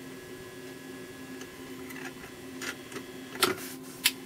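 Electric soldering gun humming steadily while wires are soldered to tube-socket pins, with three sharp clicks in the second half, the loudest about three and a half seconds in.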